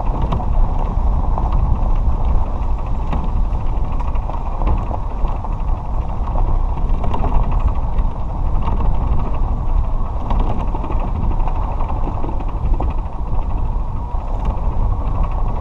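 Small cart driving along a dirt road: a steady rumble of running gear and tyres on the dirt, with frequent small rattles and clicks.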